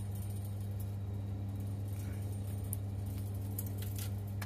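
Steady low hum of a gas central-heating system running with its boiler burner lit, with a few faint ticks over it.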